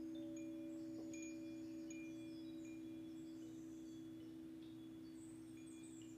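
Singing bowl ringing a steady low hum that slowly fades, with scattered short, high tinkling notes of wind chimes over it.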